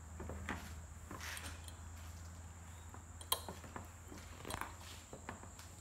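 Faint scattered metallic clicks and ticks as the threaded screw of a homemade cylinder puller is turned by hand on a seized Yamaha RZ350 engine, pushing the seized piston down to lift the cylinder off. A steady low hum runs underneath, and the sharpest click comes about three seconds in.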